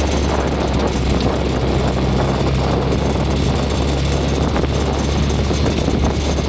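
Off-road buggy engine running steadily as it drives along a dirt trail, heard from on board under a steady rush of wind and trail noise.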